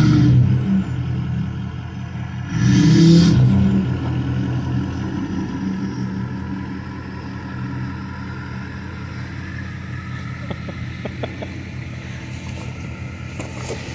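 Ford F-250's Power Stroke V8 diesel engine revving in two short bursts, then running steadily at low revs. A few light knocks come near the end.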